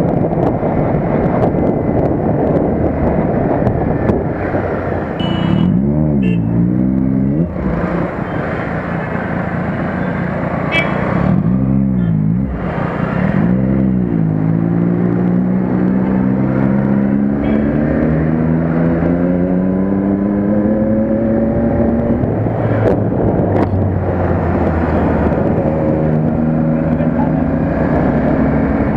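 Motorcycle engine heard from on board in traffic, with a heavy wind rush at first. The engine note dips and climbs sharply twice, then rises slowly for several seconds as the bike gathers speed.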